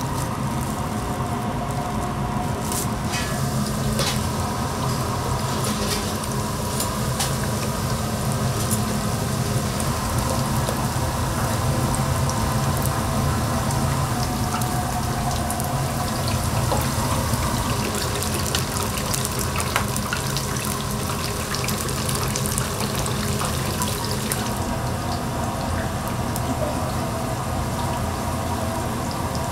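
Kitchen sounds at a Korean street-food stall: a steady watery hiss over a low hum, with frequent short clinks of metal utensils.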